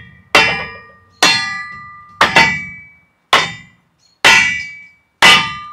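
Hammer blows driving a log down through a Kabin Kindle Quick cast steel kindling splitter, about one a second, with two close together in the middle. Each blow is a sharp metallic clang that rings and dies away. The wood is wet.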